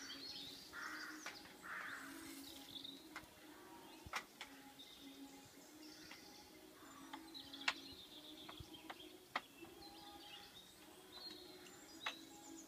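Faint outdoor ambience of birds chirping, with a few sharp clinks of a utensil against a frying pan spread through it and a faint low hum underneath.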